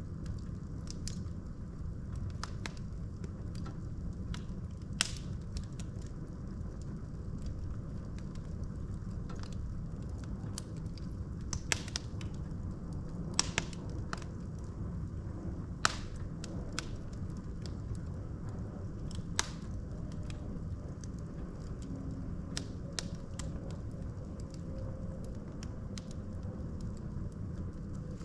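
Wood logs burning in a fireplace: a steady low rumble of the fire with irregular crackles and sharp pops, a handful of them standing out louder.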